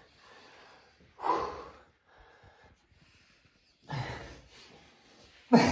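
Short breathy snorts and gasps: a strong puff of breath a little after a second in, another about four seconds in, and a sharp, loud one just before the end.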